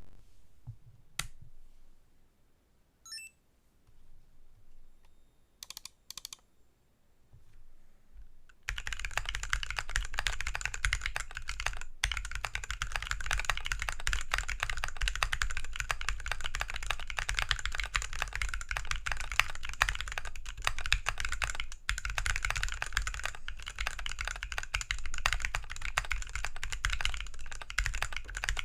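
OLKB Planck 40% ortholinear mechanical keyboard with Gateron Phantom Brown tactile switches lubed with Tribosys 3203, in an aluminum case and plate with XDA PBT keycaps, being typed on. A few scattered clicks come first, then fast, continuous typing starts about nine seconds in.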